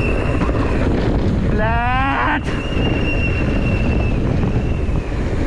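Heavy wind rush and rolling rumble on the microphone of a mountain bike descending fast. A short rising call comes about a third of the way in. After it, a high steady squeal lasts about two seconds.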